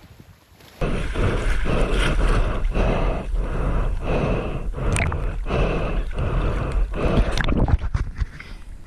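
Wind buffeting the microphone while a rhythmic whooshing comes and goes about one and a half times a second, in time with a rider pumping a hydrofoil board over the water. A couple of sharp clicks near the middle and near the end.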